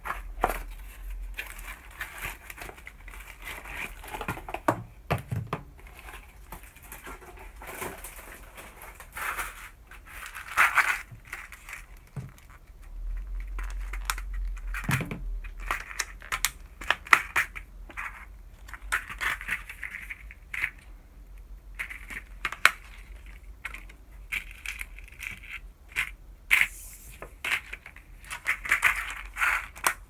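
Crinkling and rustling of a clear plastic blister pack of metal eyelets being handled and opened, with many sharp, irregular clicks of the stiff plastic.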